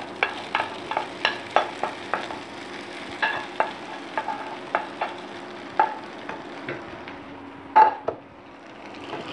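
Spatula scraping and tapping against a steel bowl and a pan as white sauce is scraped onto pasta, in irregular sharp clicks over a faint steady sizzle of the pan. One louder knock comes about eight seconds in.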